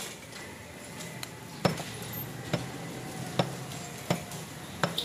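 Butcher's cleaver chopping meat on a wooden chopping block: a series of sharp chops, roughly one a second, starting a little over a second in.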